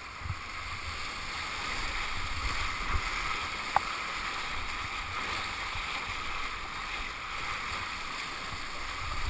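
Steady rush of whitewater churning around a kayak surfing a wave on an artificial whitewater course.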